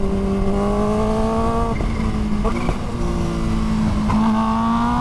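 Kawasaki Ninja H2's supercharged inline-four engine running on the road under steady throttle. Its note climbs slowly, drops briefly about two seconds in and again near three seconds, then climbs again.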